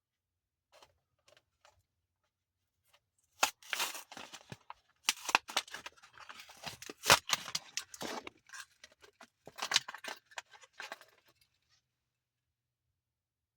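Packaging of a Hot Wheels die-cast car being torn open by hand: a run of sharp crackling and tearing of plastic blister and cardboard card. It starts about three and a half seconds in and stops near the end, after a few faint ticks at the start.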